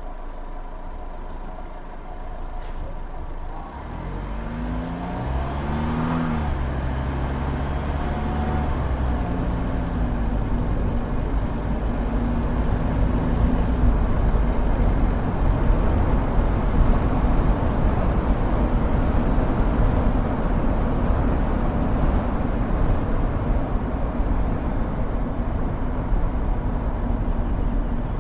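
Motor vehicle engine pulling away, its note climbing in pitch and dropping back several times from about four seconds in. It gives way to a steady rush of road and tyre noise that grows louder.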